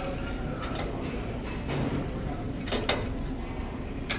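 Cable pulley machine clacking during cable glute kickback reps: two sharp clacks close together a little before three seconds in and another near the end, over steady background noise.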